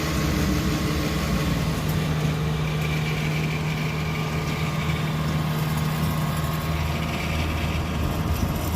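Engine running steadily at a constant speed: an even, low hum with no revving.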